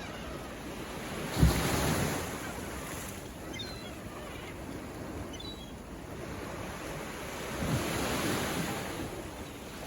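Ocean waves breaking on a shore: one wave crashes with a sudden thump about a second and a half in, and another washes in near the end, over a steady hiss of surf.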